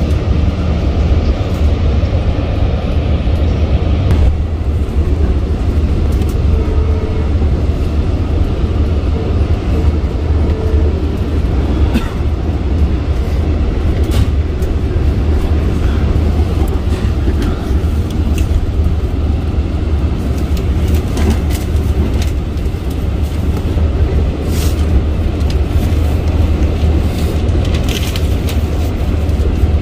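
Steady low rumble inside a moving Long Island Rail Road commuter train carriage, with scattered faint clicks in the second half.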